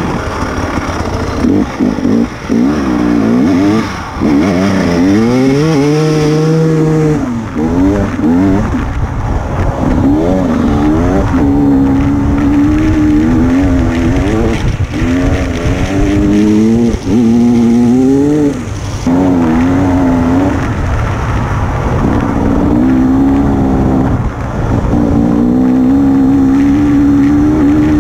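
Enduro motorcycle engine, heard on board from the rider's helmet camera, revving up and falling away again and again through gear changes and throttle lifts.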